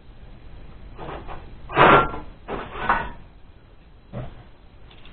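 Several short knocks and rustles of things being handled, the loudest about two seconds in.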